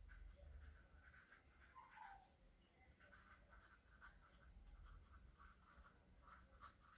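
Faint squeak and scratch of a marker pen writing on paper, in short strokes with brief pauses between them.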